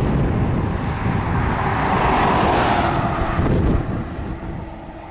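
Fighter jet flying past: a loud rushing jet noise with a low rumble beneath, swelling to a peak about two seconds in, then falling away sharply near the end.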